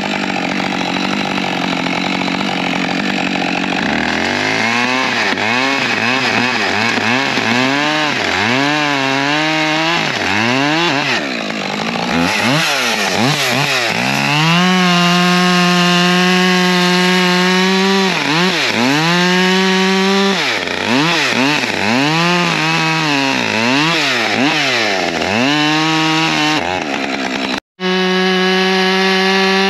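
Husqvarna two-stroke chainsaw cutting firewood rounds: the engine revs up and falls back again and again, held at full throttle for a few seconds at a time while the chain is in the wood. The sound drops out for a moment near the end.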